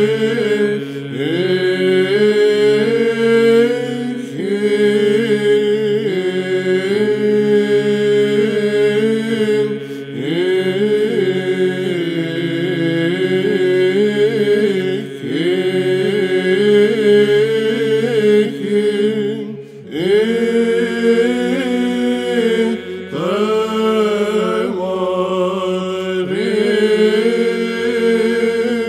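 Byzantine chant sung in Romanian by male voices: a lead voice sings a long melismatic line on drawn-out vowels over a steady held drone (ison). About twenty seconds in, the drone shifts down to a lower note.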